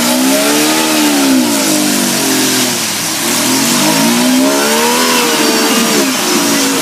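Jeep engine revving hard in two surges as it is driven through a deep mud hole, rising in pitch, falling away, then rising again.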